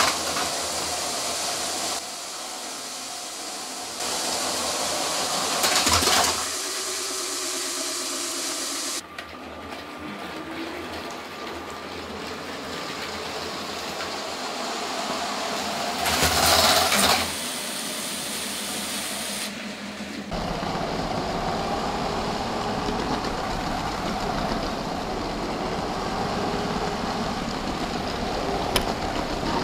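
Motorised LEGO City trains running on plastic track: a steady whir of small electric train motors with the hiss and rattle of plastic wheels. The sound changes abruptly several times, and there are two louder bursts of noise, about six seconds in and about sixteen to seventeen seconds in.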